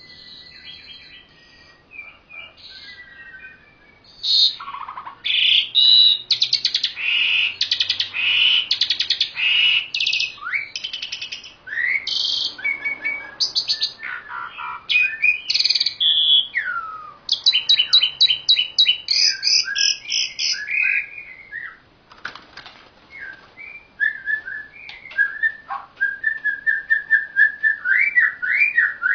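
Caged songbirds, an Asian pied starling and a white-rumped shama, singing in rapid, varied bursts of whistles and trills. The song is faint at first, turns loud about four seconds in, pauses briefly past the two-thirds mark, and ends in a run of fast repeated notes.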